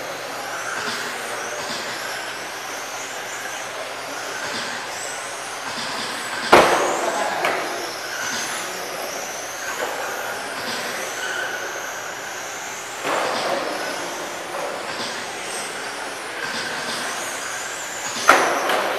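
Several 21.5-turn brushless electric RC touring cars racing, their motors whining in pitches that rise and fall as they speed up, brake and pass. Two sharp knocks, about six and a half seconds in and near the end.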